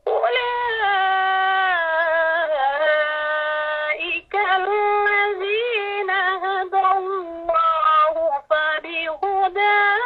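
Melodic Arabic recitation of the Quran by a single voice, starting right at the beginning. The voice holds long notes with ornamented glides in pitch and takes short breaths about four seconds in and again near eight and a half seconds.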